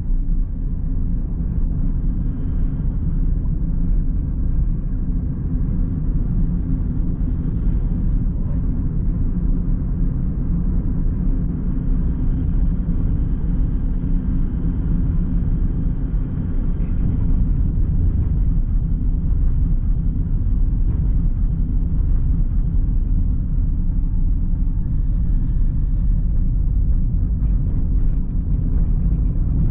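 A car driving on a downhill mountain road, with steady low engine and tyre rumble.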